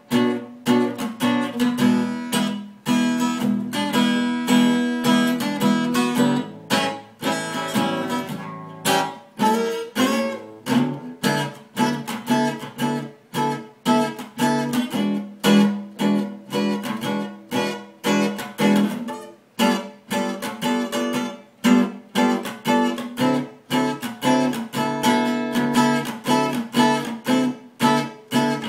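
Acoustic guitar played solo, chords strummed in a steady swing rhythm.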